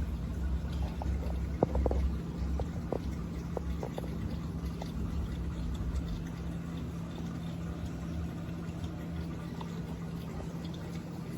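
Aquarium water trickling and dripping, with small irregular drips over a steady low hum, typical of a running aquarium filter and pump.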